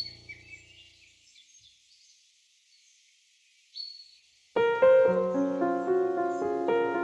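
Scattered high bird chirps, with a fading musical tail in the first second. About four and a half seconds in, a piano piece starts loudly, with sustained chords and a melody.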